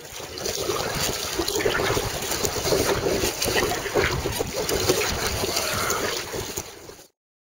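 Water splashing and lapping from paddle strokes on a sea kayak, with wind buffeting the microphone. It fades in at the start and cuts off suddenly near the end.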